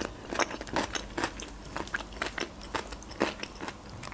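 Chewing a mouthful of boiled Georgian khinkali dumplings close to the microphone: irregular soft mouth clicks and smacks, a few a second.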